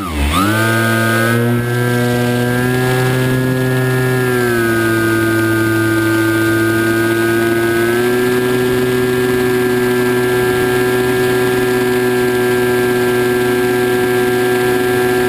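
Electric motor and propeller of a radio-controlled flying wing, heard from the camera on the plane, running at steady cruise throttle with a pitched whine. The pitch dips slightly about four and a half seconds in and rises again around eight seconds.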